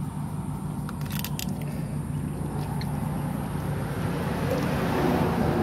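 Water sloshing and splashing in a tub as hands wash an eel, growing louder over the last couple of seconds, over a steady low hum of a motor running in the background.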